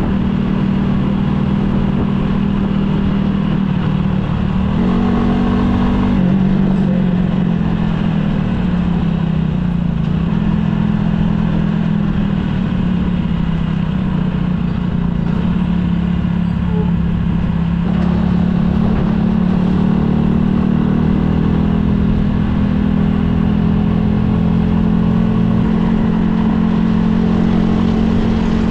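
Motorcycle engine running steadily while riding along, its pitch rising and falling slightly as the throttle changes.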